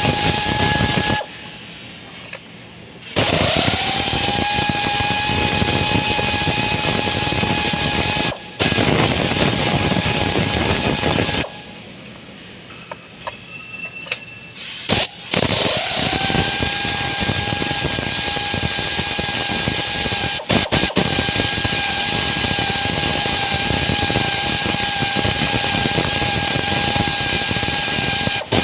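A motor-driven machine running with a steady whine over a rushing noise. It stops twice and each time spins back up, the whine rising to pitch.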